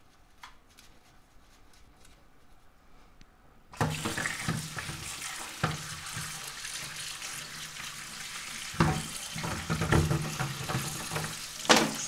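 Faint scraping of a brush inside a plastic coffee-machine brew group, then a kitchen tap turned on about four seconds in, its water running and splashing over the brew group in a stainless steel sink, with a few knocks of the unit being handled.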